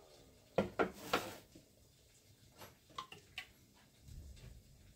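Eggs being cracked against a mixing bowl: a few sharp knocks in the first second or so, then lighter clicks around three seconds in.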